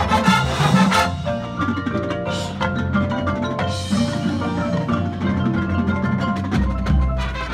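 Drum and bugle corps playing live: brass horns with the front ensemble's marimbas and timpani striking busy mallet passages, and a deep low note swelling in near the end.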